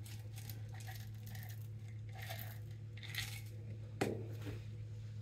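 Sprinkles shaken from a container and scattered onto chocolate-coated cookies in short rattling bursts, with one sharper click about four seconds in, over a steady low hum.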